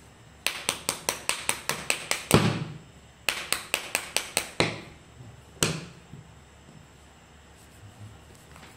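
Brass wire brush scrubbed hard back and forth across a phone's screen protector film, quick scraping strokes at about six a second in two runs, then one last stroke.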